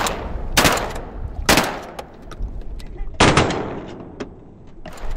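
Three shotgun shots, the first two about a second apart and the third nearly two seconds later, each a sharp report trailing off briefly, over wind noise.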